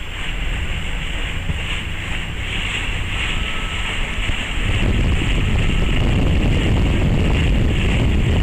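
Wind buffeting the microphone over a Hardy Pilot 20SE motor cruiser running past under outboard power, its engine and bow wash. The sound grows louder after about five seconds as the boat comes closer.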